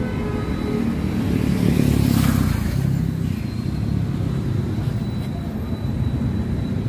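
Steady road traffic rumble, swelling louder about two seconds in.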